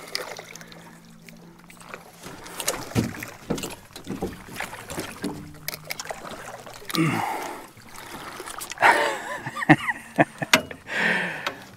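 Sharp knocks on an aluminium jon boat's hull and gear while a hooked catfish is netted over the side, with a man's short strained grunts of effort. A low steady hum runs under the first few seconds.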